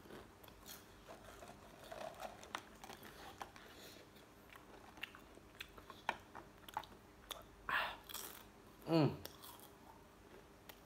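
Person chewing crunchy Mr. Potato ghost-pepper potato chips, with scattered crisp crunches throughout. Near the end comes a puff of breath, then a short vocal sound sliding down in pitch.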